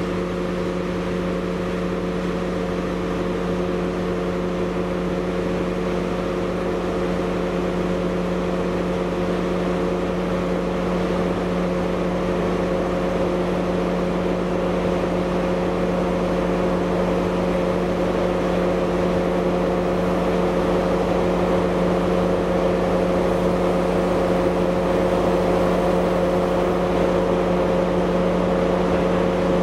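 Freight train of steel-coil wagons rolling slowly past, with a steady engine drone held at one pitch over the rumble of the wagons, growing a little louder in the second half.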